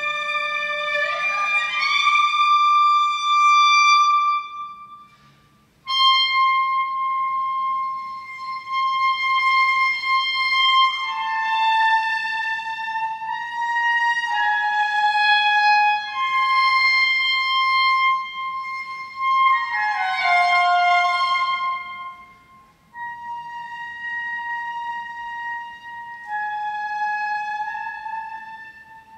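Clarinet and cello playing a slow duet of long held high notes, with rising slides about a second in and falling slides around two-thirds of the way through. The sound breaks off briefly twice, about five seconds in and again later.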